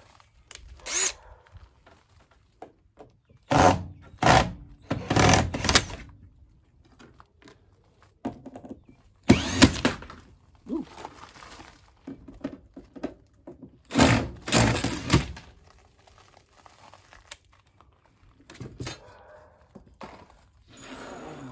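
Cordless drill-driver backing out the screws of a metal trim plate on an RV door threshold, run in several short bursts of a second or two with pauses between.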